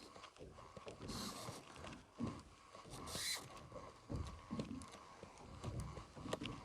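Irregular knocks, clicks and creaks of fishing gear being handled in a small boat, with two short hisses about one and three seconds in and a faint steady hum underneath.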